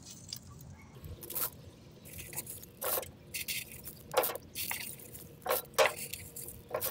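Dried, broken eggshells being scooped and stirred by hand in a plastic bowl: scattered sharp crunches and clinks of the brittle shell pieces at irregular moments.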